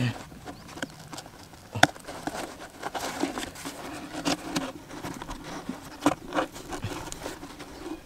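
Hands working a cardboard carton trap set in sand, adjusting its flap, string and a bamboo trigger stick: light rustles and scrapes of cardboard and string, with a few sharp taps, the sharpest about two seconds in.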